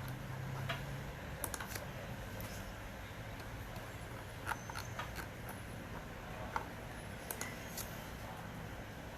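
Scattered light clicks and taps, a few every second, over a steady low hum.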